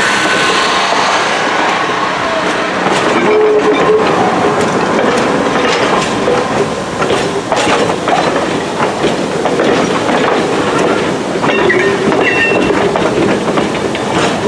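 Railroad passenger cars rolling past close by, wheels clacking irregularly over rail joints with a few short wheel squeals.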